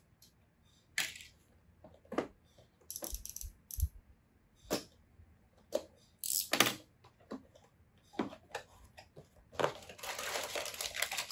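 A cardboard LEGO set box being opened by hand: scattered clicks and taps as the tape and flaps are handled, with loose parts rattling inside. Near the end a longer rustle as the plastic parts bags and booklet slide out of the box.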